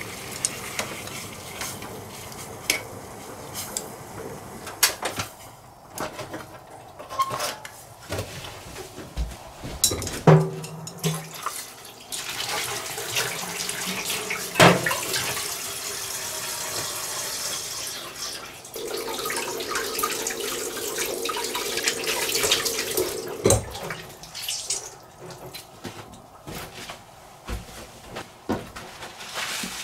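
Kitchen tap running into a stainless-steel sink for about ten seconds midway, as blanched squid legs are rinsed under it. Scattered sharp knocks and clatter of a metal pot and utensils against the sink come before and after.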